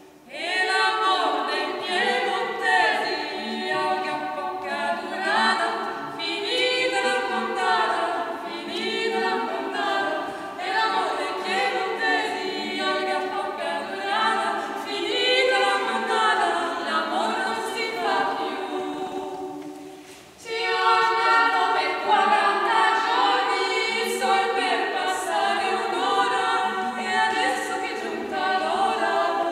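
Women's voices singing a cappella in several parts, with no instruments, broken by a short pause about two-thirds of the way through.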